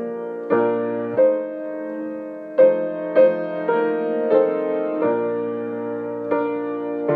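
Solo piano playing slow, gentle music: sustained chords, with new notes struck about once a second and left to ring.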